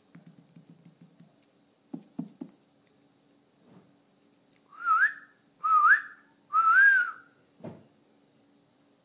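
A person whistling three short notes about a second apart, each wavering up and down in pitch, followed by a soft thud.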